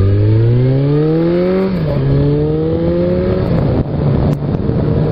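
Suzuki Bandit inline-four motorcycle with the baffle removed from its Yoshimura exhaust, accelerating hard: the exhaust note climbs, drops at a gear change about two seconds in, climbs again, then holds steady.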